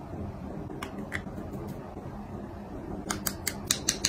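Small makeup tools being handled close to the microphone: a few light clicks about a second in, then a quick run of about a dozen sharp clicks near the end.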